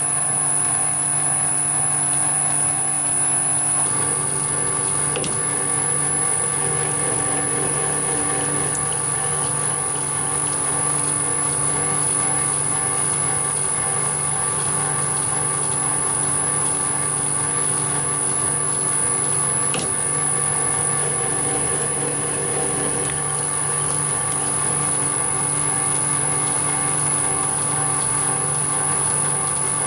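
Metal lathe running under power with its gear train and leadscrew turning, screw-cutting a thread on an EN16T steel stud: a steady mechanical hum with a few faint ticks.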